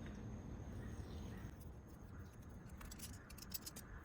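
Masking tape being peeled up from a door trim piece after being cut along the edge. It makes faint, irregular crackles and small clicks, which come thicker in the second half.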